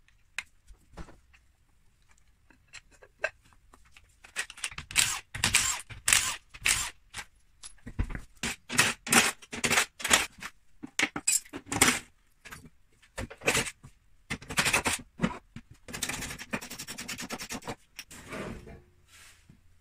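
Rapid metallic clinks, clatters and scrapes of hand tools and fasteners as a car's front wheel and front wing are taken off, with a longer scraping stretch near the end.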